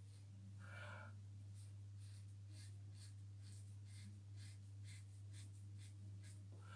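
Faint, short scrapes of a double-edge safety razor cutting stubble on a lathered neck, about two strokes a second, over a steady low hum. A breath is heard about a second in.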